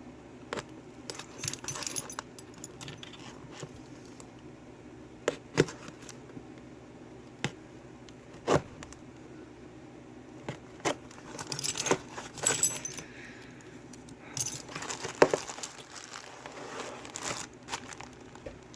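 Scattered sharp metallic clicks and clinks of locks and keys being handled, with two stretches of denser rustling and jangling in the middle and later part as the contents of a box are unpacked.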